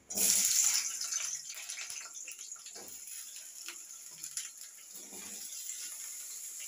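Cubed potatoes sizzling as they are dropped into hot oil in a metal kadai. The sizzle starts suddenly, is loudest in the first second, then settles to a steady hiss, with a few soft knocks as more pieces go in.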